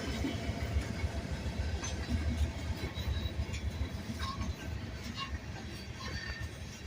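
Train cars rolling past: a steady low rumble with scattered clanks and brief high squeaks.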